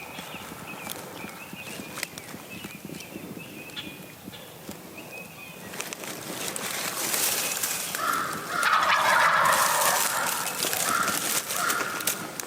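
Wild turkey gobbling, a loud rattling call about eight and a half seconds in, followed by a couple of shorter notes. Before it, faint high chirps of small birds.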